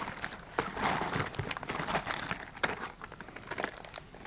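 A plastic mailer bag and a foil pouch crinkling in irregular rustling bursts as they are opened and handled.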